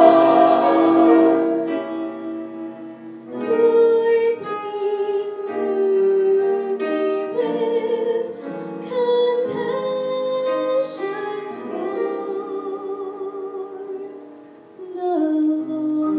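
Church choir and small orchestra closing a song: a loud held chord fades over the first few seconds, then a quieter, slow passage of long sustained notes, one melody line with vibrato over soft accompaniment.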